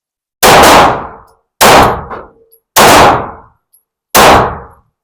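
Semi-automatic pistol fired four times in slow, steady succession, one very loud shot about every 1.2 seconds, each with a short ringing tail.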